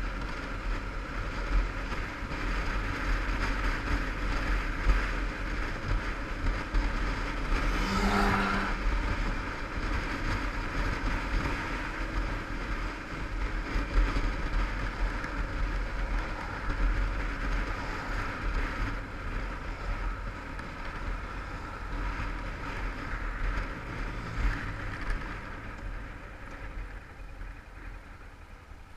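Yamaha TDM850 parallel-twin engine running on the move, under heavy wind rumble on the GoPro's microphone. A short pitched sound cuts through about eight seconds in, and the noise eases near the end as the bike slows.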